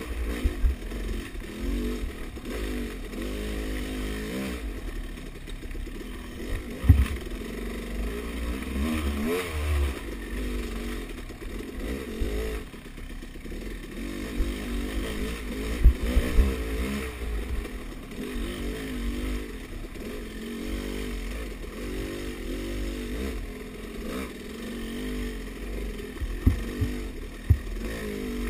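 Dirt bike engine revving up and down as the bike is ridden along a rough woods trail, the pitch rising and falling with the throttle. A low rumble runs underneath, and a few sharp thumps cut in.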